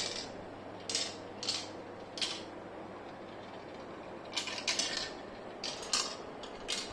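A marble rolling down a toy marble run, clicking and tapping against the track pieces as it drops from level to level, in a string of about ten irregular clicks.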